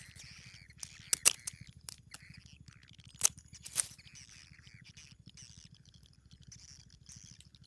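Small crab shells clicking and cracking as they are handled and one is tied onto fishing line as bait, with several sharp clicks, twice in quick pairs. Birds chirp in the background.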